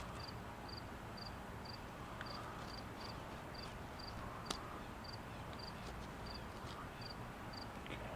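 A cricket chirping steadily, about two short high chirps a second, over faint scraping strokes and one sharp click about halfway through.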